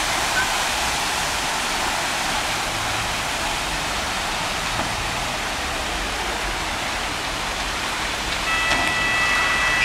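Steady rushing hiss of water pouring into a canal lock chamber. About eight and a half seconds in, a high steady whistling tone comes in over it for a second or so.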